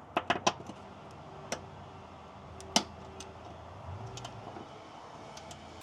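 Metal clicks and clinks of a hand socket wrench working on the 15 mm transmission crossmember bolts: a quick cluster of clicks at the start, then single sharp clicks here and there, the loudest a little under three seconds in.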